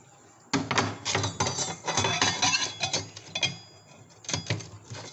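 Food containers and dishes clattering and clinking as they are put back and moved about on a fridge shelf. There is a dense run of knocks for about three seconds, with short ringing clinks, then a quieter pause and a second brief clatter near the end.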